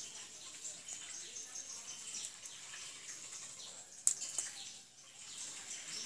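Small birds chirping, with one sharp click about four seconds in.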